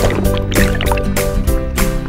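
Instrumental background music with a steady beat, about four beats a second, over held chords.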